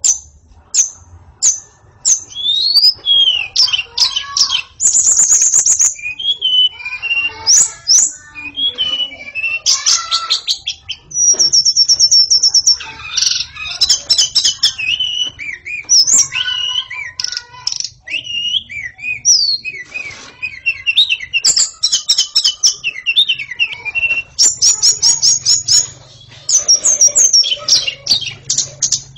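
White-rumped shama (murai batu) singing in full, continuous song: a varied run of loud whistles, rapid trills and chattering notes with only brief pauses. It opens with a few short, sharp single notes before the song becomes dense about two seconds in.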